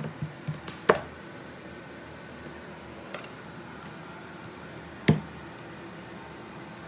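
A few light knocks in the first second, then one sharp knock about five seconds in: a metal spoon and a plastic tub of soft cheese being handled on a plastic cutting board.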